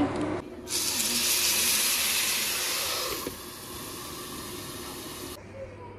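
Steady hiss of dumplings frying and steaming under the glass lid of a frying pan, louder for the first few seconds and quieter after about three seconds in.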